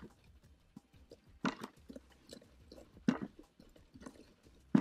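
Damp soil rubbed by hand through a riddle over a bucket, sifting out stones and grass: irregular gritty scraping and crunching, with two louder rasps about one and a half and three seconds in.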